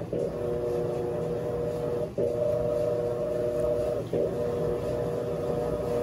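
Electrolux LAC17 top-load washing machine agitating a load of blankets: the motor runs with a steady hum, dropping out briefly about every two seconds as the impeller changes direction.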